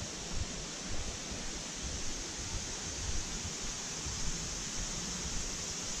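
Steady rushing of a mountain valley stream beside the path, with uneven low thuds from walking underneath.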